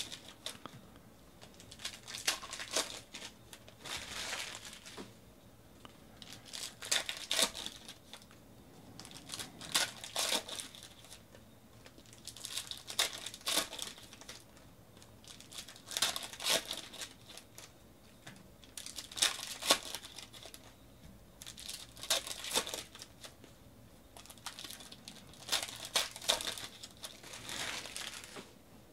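Foil trading-card pack wrappers being torn open and crinkled by hand, one pack after another, a crackling burst about every three seconds.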